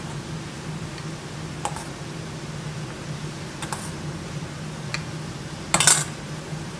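A metal spoon clinking and scraping against a stainless steel bowl as ravioli are spooned out of it: a few light clicks, then a louder clatter near the end. A steady low hum runs underneath.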